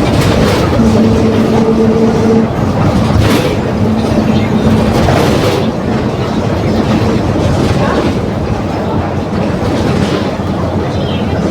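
Volksbus 17.230 OD diesel bus under way: engine and road noise with body rattles, and a steady whine from the differential, the growl that marks this bus. The whine is strongest in the first few seconds and comes and goes until about halfway through.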